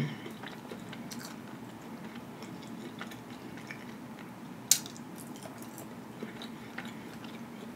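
Soft, close-up eating sounds: chewing and small mouth noises over a bite of creamy spinach curry and bread, with one sharp click about five seconds in.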